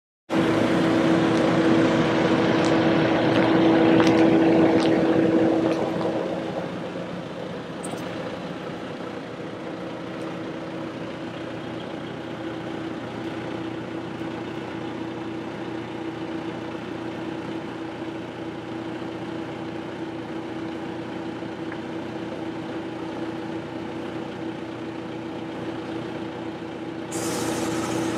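An engine running steadily with a strong, steady hum-like tone, louder for the first six seconds and then settling lower. A short burst of hiss comes near the end.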